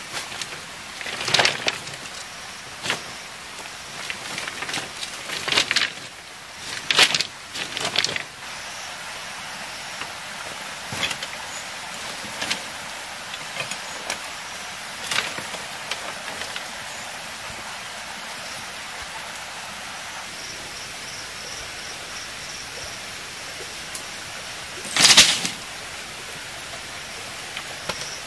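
A bundle of cut saplings and sticks handled on dry leaf litter: knocks and rustles of wood against wood several times in the first eight seconds, then scattered light clicks. About 25 seconds in comes the loudest sound, a clattering crash as the bundle of sticks is dropped onto the ground.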